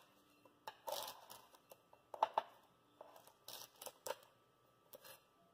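Faint, irregular scrapes and light clicks of a small metal spatula moving over raw cookie dough rings on a parchment-lined metal baking tray. The loudest scrape comes a little over two seconds in.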